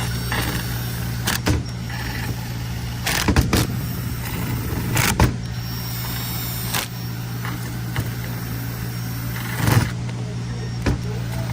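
Hand tools on transmission bolts as they are snugged down lightly: a handful of separate sharp clicks and knocks over a steady low hum.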